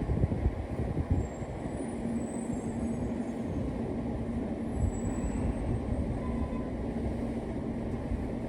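R46 subway train running: a low rumble with a steady hum setting in about two seconds in.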